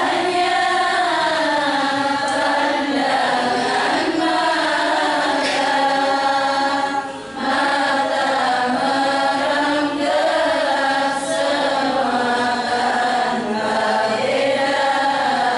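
A group of voices singing a slow Islamic devotional song in unison, with held, gliding notes and a brief break about seven seconds in.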